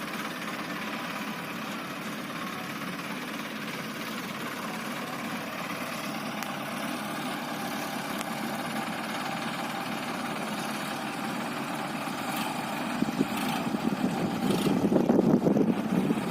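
Diesel engine of heavy farm or earthmoving machinery running steadily, then louder and rougher for a couple of seconds near the end, with a few faint clicks or knocks just before.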